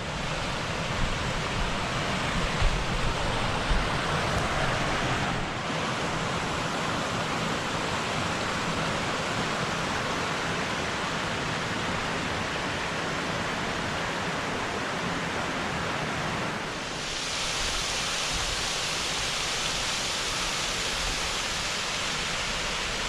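Millers River rushing steadily below, a continuous water noise that turns brighter and hissier about 17 seconds in.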